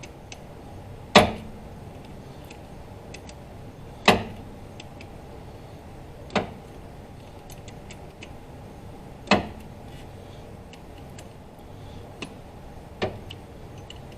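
Click-type torque wrench set to 18 foot-pounds breaking with a sharp click five times, once for each bolt as it reaches torque, with faint ticking in between.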